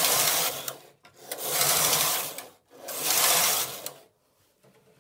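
Knitting-machine carriage pushed back and forth along the needle bed of a Silver Reed punchcard knitting machine on lace transfer rows, each pass a rasping sweep over the needle butts. One pass ends about a second in, two more follow, and the last stops about four seconds in.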